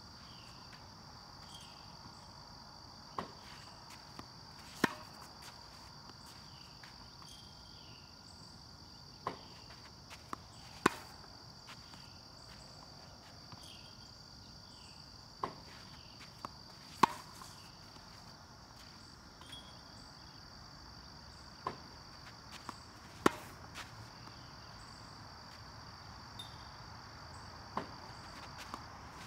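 Tennis racket striking balls fed by a ball machine, one sharp pop about every six seconds, each led by fainter ticks of the ball being launched and bouncing. A steady high insect trill runs underneath.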